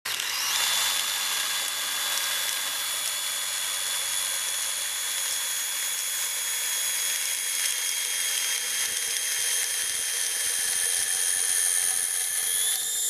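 Cordless drill driving a homebrew roller grain mill, crushing malt: a steady high motor whine over the rushing rattle of grain going through the rollers, the pitch rising slightly near the end as the hopper runs nearly empty.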